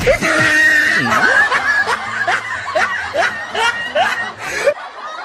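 Laughter: a quick run of short laughs, about three a second, that breaks off suddenly near the end.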